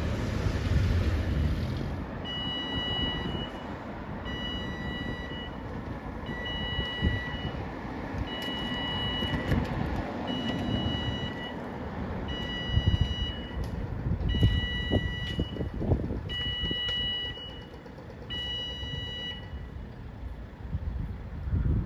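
Railway level crossing warning alarm sounding as the barriers lower for an approaching train: a two-tone beep repeating about every two seconds, each beep about a second long. Under it runs a low rumble of road traffic.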